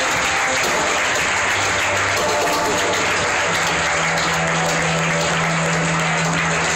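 Audience applauding, over loud runway music with held low bass notes.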